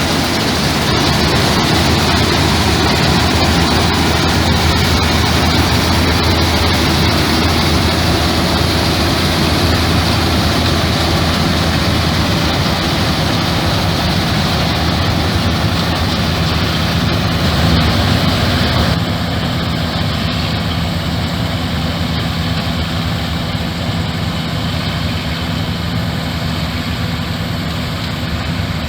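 Combine harvester's diesel engine running steadily with a low drone and the hiss of the machine working, shifting slightly and a little quieter about two-thirds of the way through.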